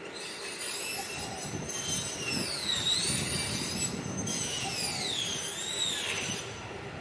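A high-pitched squeal that slides up and down in pitch, in two long spells with a brief break about four seconds in, over a low rumble.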